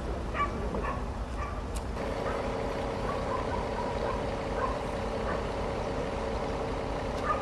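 Street noise with vehicle engines running, a low rumble; a steady hum comes in about two seconds in, with a few short, faint higher sounds over it.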